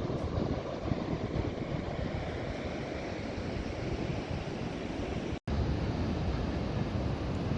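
Ocean surf washing in, with wind rumbling on the microphone. The sound cuts out for an instant about five and a half seconds in.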